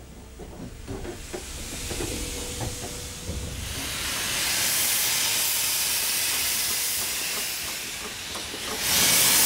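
Steam locomotive hissing steam as the sanding control in the cab is worked, building up over the first few seconds, then a louder steady hiss near the end as steam blows out around the coupled wheels at the rail.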